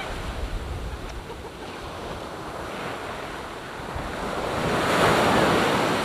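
Ocean surf breaking and washing up a sandy beach, swelling to its loudest about five seconds in as a wave rushes up the sand. Wind rumbles on the microphone.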